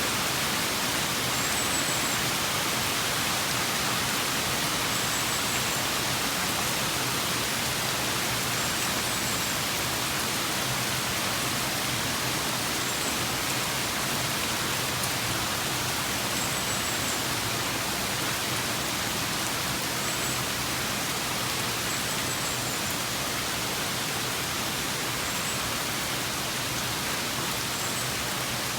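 Steady rain falling, an even, unbroken hiss, with a faint short high chirp repeating every few seconds.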